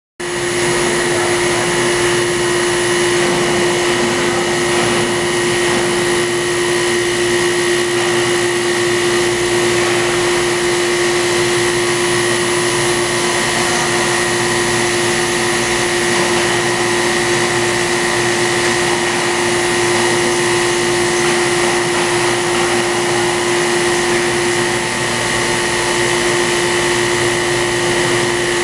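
CNC cylindrical grinder running during straight (traverse) grinding of a steel shaft, the grinding wheel spinning as it feeds along the workpiece. A steady, unchanging whine over a hum.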